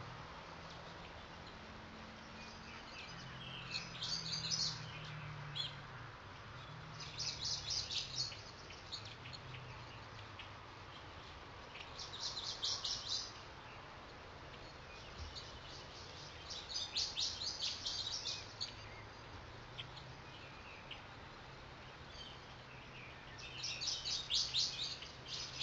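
Songbirds chirping in five separate bursts of rapid, high trilled chirps, each lasting about a second, over a faint low hum.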